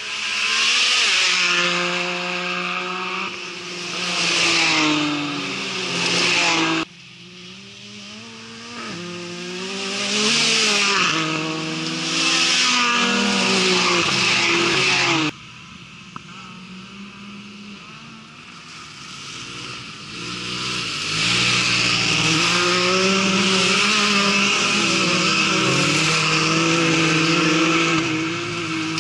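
Side-by-side racing buggies passing at speed on a dirt track, their engines revving hard, the pitch rising and falling with each pass over a hiss of tyres on dirt. The sound breaks off abruptly twice, about 7 and 15 seconds in, as one pass gives way to the next.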